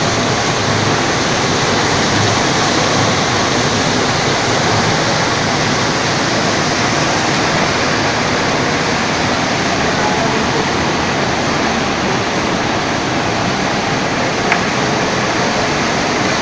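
Steady loud rush of water from a vertical sump pump running and discharging, with a brief click near the end.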